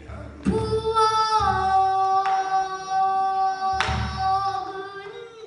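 A young girl singing pansori, holding one long, drawn-out note that dips in pitch about a second in, with three strokes of the buk barrel drum beneath it.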